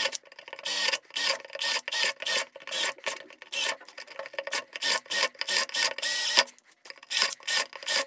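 Quick, uneven strokes of a hand tool rasping and scraping against wood, roughly two a second, as the wood left between a ring of drilled holes is worked away to clear a round opening in a wooden lid.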